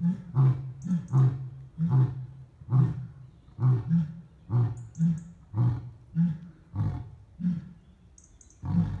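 Lion roaring: a run of deep, grunting calls about one to two a second, the spacing widening and the calls fading toward the end as the roar winds down.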